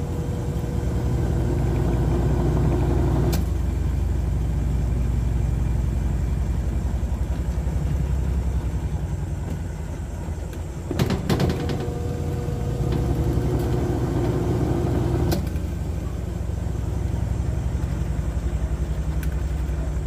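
Wash motor of an LG top-load automatic washing machine running steadily with a low hum in spin mode, turning the tub now that its defective capacitor has been replaced. A few sharp clicks stand out: one a few seconds in, a pair about halfway, and another a few seconds later.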